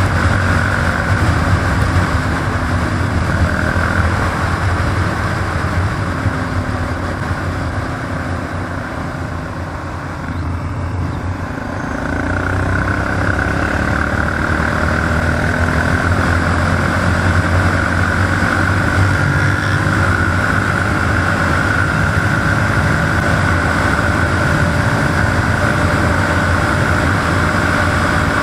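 ATV (quad bike) engine running steadily. It eases off from about eight seconds in and picks up again about twelve seconds in.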